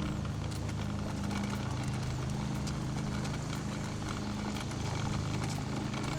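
Small wheels rolling over pavement: a steady low rumble with a rapid, uneven clatter of clicks.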